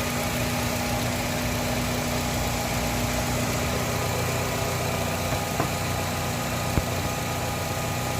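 2008 Nissan Qashqai engine idling steadily, an even hum with a faint steady tone, and a couple of small clicks in the second half.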